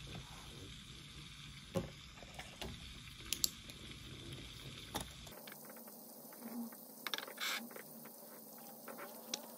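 Faint steady rain hiss with scattered light clicks and taps of paper sheets and a pen being handled on a desk, a quick run of clicks near the end. About halfway through the background hiss changes abruptly to a thinner one.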